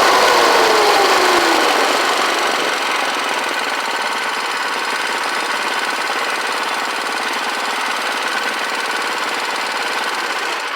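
Predator 212cc single-cylinder four-stroke engine on an ATV slowing down, its pitch falling over the first couple of seconds. It then settles into a steady idle with a rapid, even pulse.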